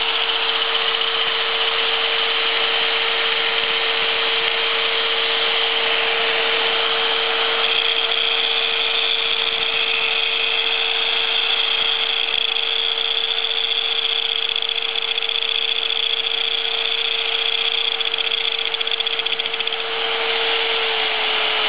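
An angle grinder runs steadily with its wheel held against a weld on a spinning steel shaft, alongside the old corded drill that turns a homemade rubber-band-driven lathe. There is a constant motor whine under a grinding hiss that turns sharper and brighter about eight seconds in.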